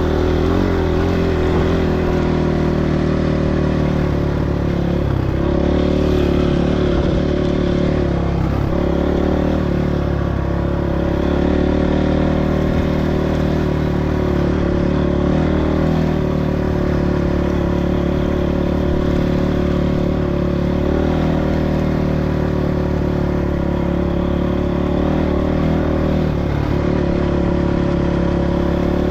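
Small motorcycle engine running at a steady, nearly constant speed while being ridden.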